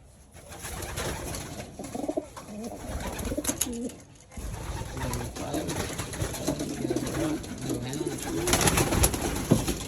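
Domestic pigeons cooing in a loft: low, wavering coos repeated through the second half, with a few sharp clicks near the end.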